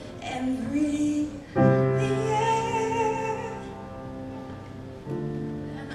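Live pop ballad: a woman sings into a microphone over keyboard accompaniment. About a second and a half in, a sustained keyboard chord swells in beneath a held melody line, and the chord changes near the end.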